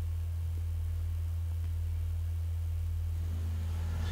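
Steady low hum: one deep, unchanging tone with nothing else over it.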